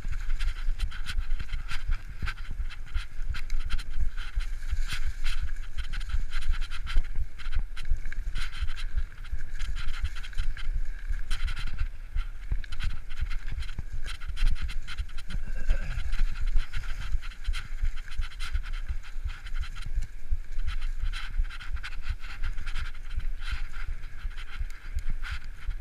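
Mountain bike ridden fast down a leaf-covered dirt trail, heard from a rider-mounted action camera: steady deep wind and bump rumble on the microphone, tyres rustling over dry leaves, and constant rattling clicks from the bike over rough ground.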